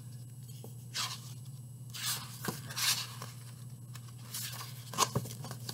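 Paperback picture book being handled and opened: several short rustles and scrapes of the paper cover and pages.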